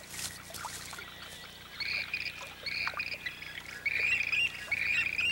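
Waterbirds calling over a marsh: a run of short, repeated calls that start about two seconds in and grow louder near the end.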